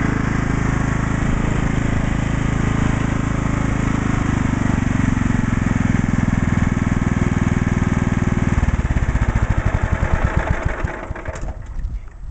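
Kohler engine of a John Deere Scotts lawn tractor running steadily, then shut off about eight and a half seconds in. Its firing beats slow and spread apart as it winds down, and it stops near the end.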